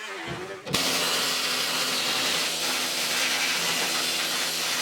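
A power tool starts suddenly less than a second in and runs steadily, a loud hissing noise with a few steady tones underneath, as it strips paint from the car's steel body.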